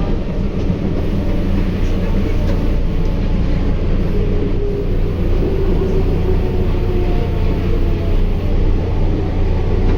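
Sendai Subway Namboku Line 1000N-series train running between stations, heard from inside the car: a steady loud rumble of wheels on rail, with faint steady tones in the middle.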